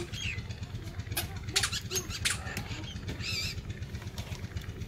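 Outdoor background with a steady low hum, a few light clicks, and a short warbling high-pitched call, like a bird's, a little after three seconds in.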